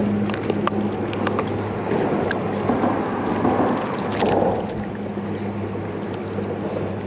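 River water rushing and wind buffeting the microphone, with a steady low hum underneath and a few light clicks scattered through.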